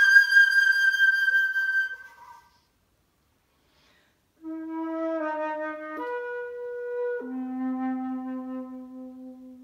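Unaccompanied concert flute: a high held note fades out, and after a short rest a slow phrase of notes in the low register steps down to a long, soft final note that dies away.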